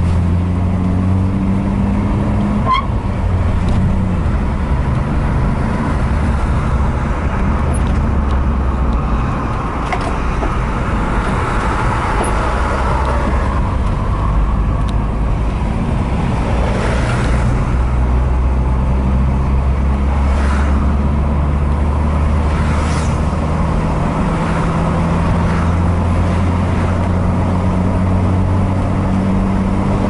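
Vehicle travelling on a highway: a steady low engine drone under continuous tyre and road noise, with a few brief whooshes in the second half.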